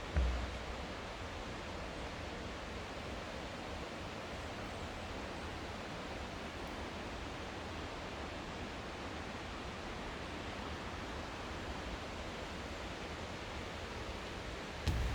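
Steady rushing of a mountain stream and its falls, an even hiss of water with no change. A low thud just after the start and another near the end.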